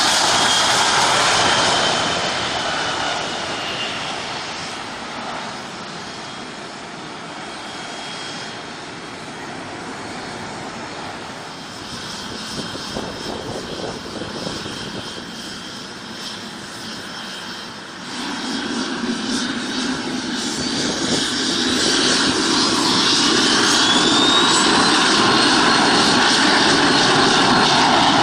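Airplane engine noise, loud at first with a slightly falling whine that fades over the first few seconds. About eighteen seconds in, engine noise builds again, with a whine that rises sharply and then holds steady, and it stays loud to the end.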